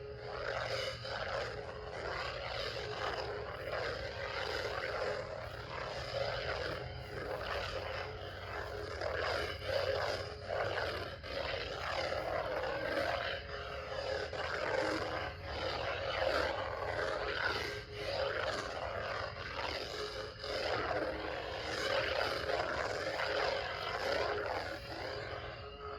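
Lightsaber hilt's speaker playing an electronic blade hum with swing sounds. It rises and falls in loudness continuously, over a steady low drone.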